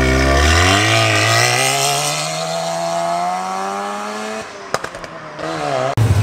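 Mazda RX-7 (FC) 13B rotary engine pulling away under acceleration, its note climbing steadily for about four seconds. Near the end a second car's deep, loud engine rumble cuts in.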